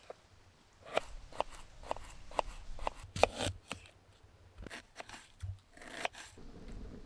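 Food being cut by hand: an irregular run of short, sharp cutting strokes, about two to three a second, with a brief pause midway.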